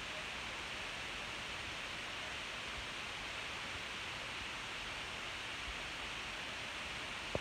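Steady, even background hiss with no other distinct sound, and a single brief knock near the end.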